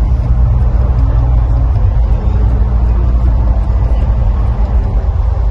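Loud, steady low rumble of the Mirage volcano show's sound effects as the volcano starts to erupt, with a low droning tone under it.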